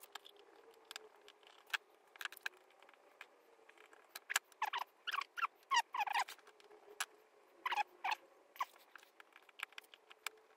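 Scattered small clicks and short squeaky scrapes of a screwdriver and wire ends being worked into the screw terminals of an old motorcycle handlebar switch, over a faint steady hum.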